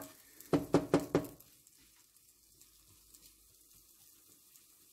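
A spatula knocks four times in quick succession against a nonstick frying pan, each knock ringing briefly. After the knocks, diced potatoes sizzle faintly in oil.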